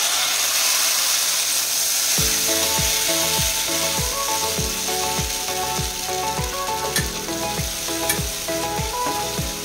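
Sizzling as a thin cornflour-and-water slurry is poured into a hot pan of fried masala and stirred in with a metal spatula. Background music with a steady beat comes in about two seconds in.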